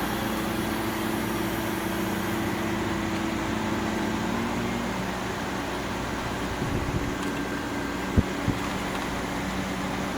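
GE Profile air conditioner running with its fan on high and its compressor on, a steady hum with several steady tones; the compressor has just come on and the unit is cooling. One of the tones drops out about halfway, and a sharp click sounds about eight seconds in, followed by a smaller one.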